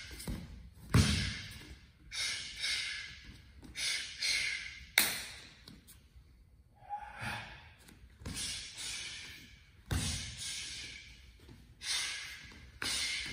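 Sharp, forceful exhalations, roughly one a second and unevenly spaced, as a martial artist works through a barefoot form, with bare feet stamping and slapping on foam mats. Two louder stamps land about one second and five seconds in.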